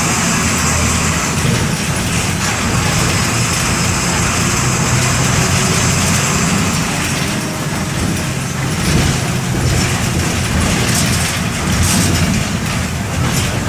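MWM 6.12 TCE inline-six turbodiesel of a Volksbus 17-230 EOD bus running steadily.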